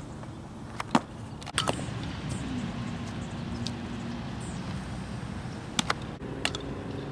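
Softball fielding drill: a handful of sharp smacks of the ball, the loudest about a second in and a close pair near six seconds, over a low steady hum.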